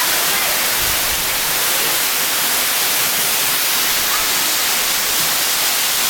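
Waterfall falling over rocks into a pool: a steady, loud rushing of water.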